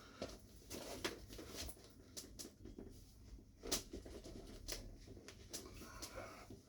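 Faint, irregular clicks and rustles of people moving and handling things, the loudest about halfway through, over a low steady hum.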